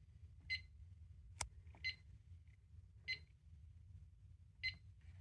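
Short, high electronic beeps from a fire alarm control panel, four of them at uneven intervals of a little over a second, with one sharp click about a second and a half in.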